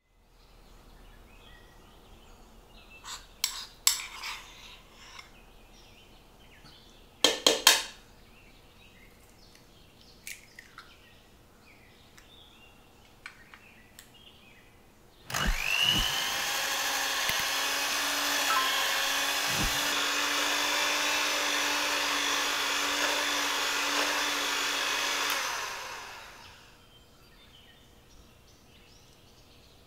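Electric hand mixer beating egg and hazelnut spread in a stainless steel bowl: it starts suddenly, runs steadily with a low hum for about ten seconds, then winds down. A few sharp knocks and clicks of kitchen work come before it.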